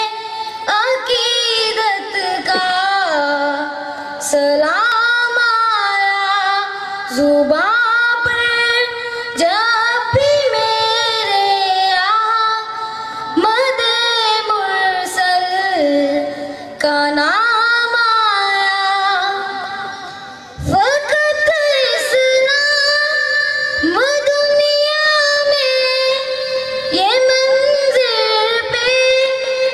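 A boy singing a naat, an Islamic devotional poem in praise of the Prophet, solo into a microphone. The voice moves in long held, ornamented lines that glide between notes, with short breaks between lines.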